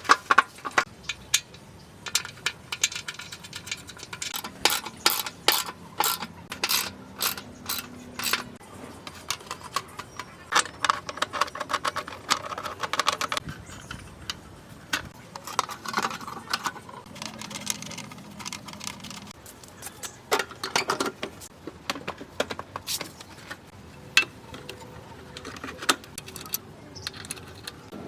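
Small metal parts and hand tools clinking and clicking against each other, irregular sharp clicks with some brief metallic ringing.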